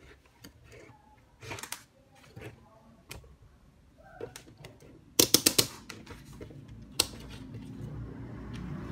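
DT9205A multimeter's rotary range selector clicking through its detents as it is turned, with a quick run of loud clicks about five seconds in and scattered lighter clicks and taps around it.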